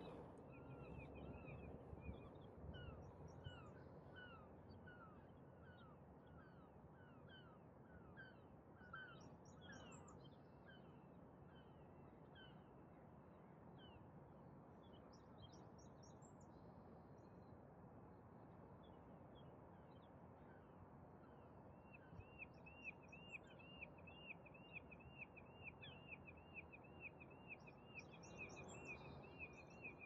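Faint birdsong over a low, steady hum of distant city noise. A run of quick, short chirps fills the first third, and from about two-thirds of the way in one bird repeats a single note about four times a second.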